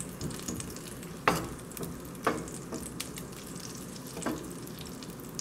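Butter and olive oil sizzling in a nonstick skillet as a wooden spoon pushes the melting butter around, the pan just coming up to heat. A few sharp clicks stand out over the steady sizzle.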